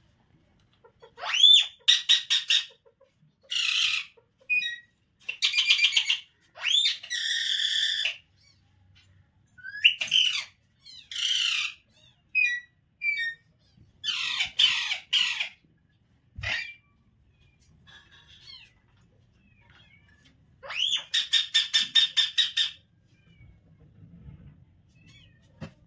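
Newborn kitten crying: a run of shrill, high mews, some starting with a rising squeal and breaking into rapid pulses. After a quieter spell comes one longer bout of cries near the end.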